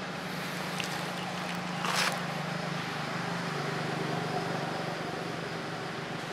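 Steady outdoor background noise with a low, even hum, and one short scratchy burst about two seconds in.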